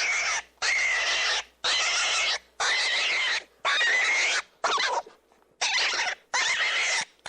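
A rabbit squealing in a run of shrill, raspy cries, about one a second, each under a second long.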